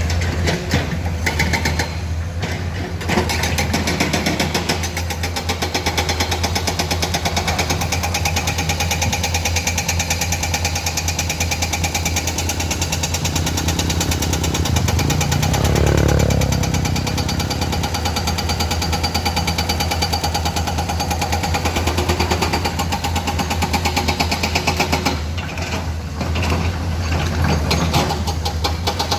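Hydraulic breaker on a Komatsu excavator hammering rapidly and evenly, with the excavator's diesel engine running underneath. The hammering starts a few seconds in and stops a few seconds before the end, leaving the engine running.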